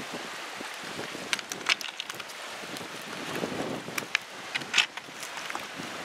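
Wind buffeting the microphone over water moving against a sea rock, with a scatter of sharp clicks and scrapes, the loudest just under five seconds in.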